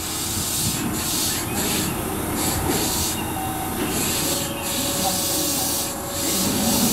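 Keihan 9000 series electric train standing at the platform, its compressed-air system hissing on and off in stretches of about a second, over a low steady rumble.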